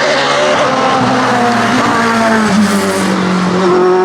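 LobArt LA01 hillclimb sports racing car with a Mugen engine running hard under full throttle. The engine note climbs and steps between gears several times.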